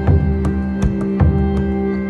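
Background music: sustained synth-like tones over a steady beat.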